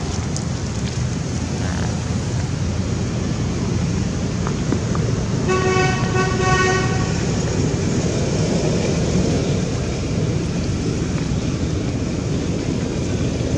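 Steady low traffic rumble. About halfway through, a vehicle horn sounds for about a second and a half, with a slight break in the middle.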